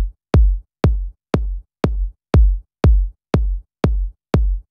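Electronic kick drum playing a steady four-on-the-floor beat on its own, about two hits a second, each a sharp click with a deep, quickly falling thump. It runs through the Arturia Bus Peak clipper-limiter while the tone corrector's bass setting is turned down.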